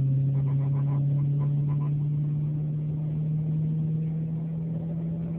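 A 1994 Honda Civic ESi's four-cylinder engine, heard from inside the cabin, running under way as the car gathers speed, its pitch climbing slowly and steadily.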